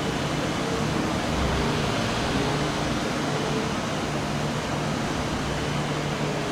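Steady rushing noise with a faint low hum running through it.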